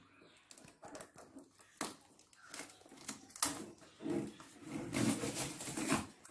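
Scissors cutting the packing on a cardboard box, with hands handling the box: scattered light clicks and snips, then about three and a half seconds in a dense stretch of scraping and rustling against the cardboard that lasts a few seconds.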